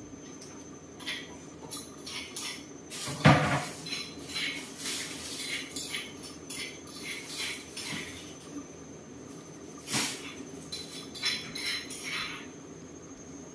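Kitchen clatter: irregular clinks and knocks of dishes and pots being handled, with one loud ringing metal clank about three seconds in and another sharp knock about ten seconds in, over a faint steady hum.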